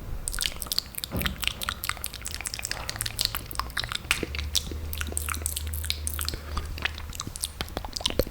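Close-miked wet mouth sounds: a rapid run of lip smacks and tongue clicks as the lips are moistened and tasted.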